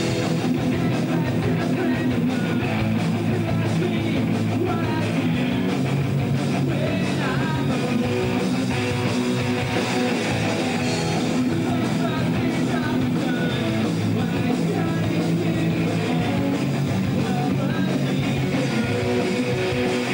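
Live rock band playing at a steady, loud level, with electric guitars prominent.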